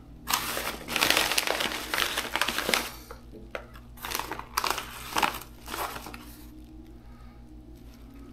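A paper envelope of small parts being handled and rummaged through, crinkling. It crinkles steadily for the first few seconds, then in shorter bursts, and is quieter near the end.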